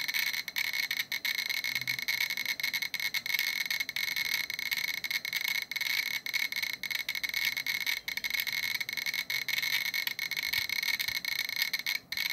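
GQ Geiger counter clicking very fast and irregularly, about fifty counts a second (around 2,800 counts per minute). Each click is a detected hit of gamma radiation from a uranium-238 metal sample.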